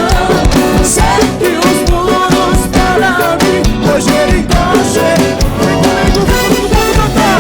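Upbeat gospel band music with a steady drum-kit beat, guitar and a melody line, in an instrumental stretch between sung lines.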